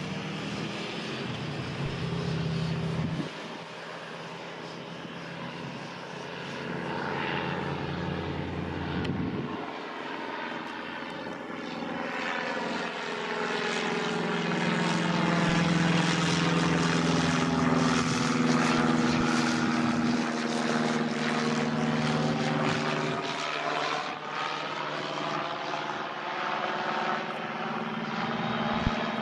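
The four Rolls-Royce RB211 turbofans of a fully loaded Boeing 747-400 freighter at take-off power: a low growl that swells to its loudest in the middle as the jet passes, then eases a little near the end.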